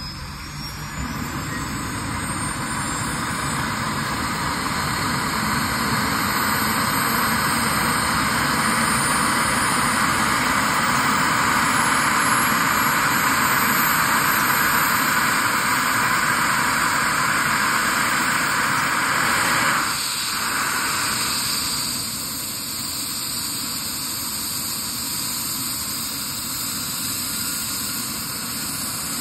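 Rescue helicopter starting up on the ground: a high turbine whine climbing steadily in pitch as the engines spool up, over a rushing noise from the turning rotor. The sound builds over the first dozen seconds, drops a little about twenty seconds in, then runs steadily.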